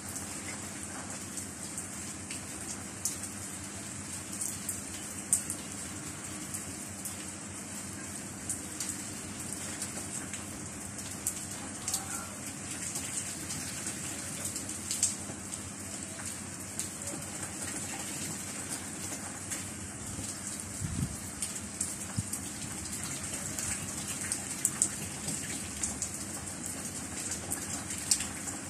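Steady rain falling, an even hiss, with single drops tapping sharply close by every few seconds.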